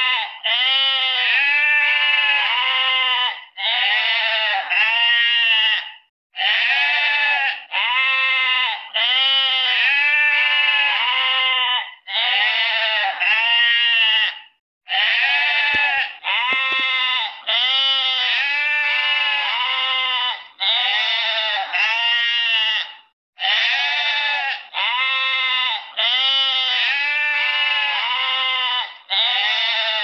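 Goats bleating over and over, one quavering cry right after another, loud and almost without pause, broken several times by sudden short silences.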